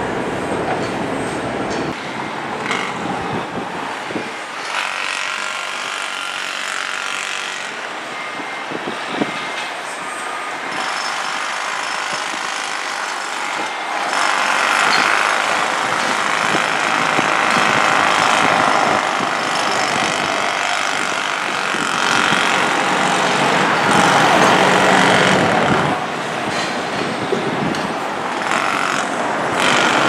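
Steady outdoor noise of engines and machinery, with no single clear source, growing louder about halfway through.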